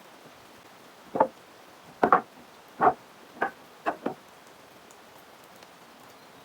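About seven sharp knocks of wood being struck, irregularly spaced between about one and four seconds in, two of them in quick succession.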